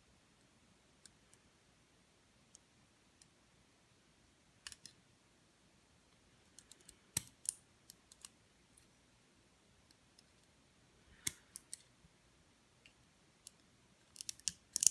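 Small metal lock parts clicking and tapping as a pin-tumbler lock is taken apart: scattered sharp clicks in small groups, with a quick cluster of them near the end.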